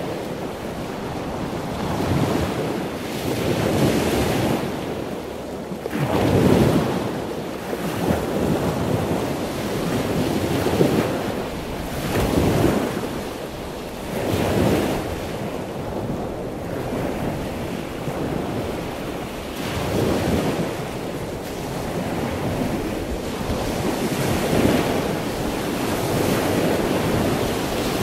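Sea waves breaking on the shore, the surf swelling and falling away every few seconds in an unbroken wash.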